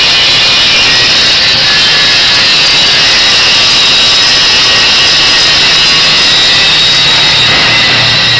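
Hand-held angle grinder grinding metal: a steady, loud, high-pitched grinding noise.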